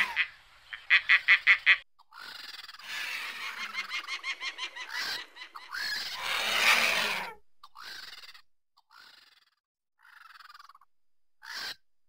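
Birds calling. About a second in comes a rapid run of about eight loud, harsh notes. Longer raspy, chattering calls follow, then shorter, fainter calls spaced out through the second half.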